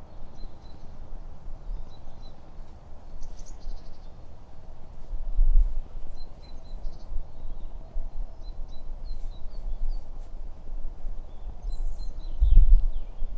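Small birds chirping sparsely in short high calls, over a steady low outdoor hiss, with two low rumbles on the microphone, one about five and a half seconds in and a louder one near the end.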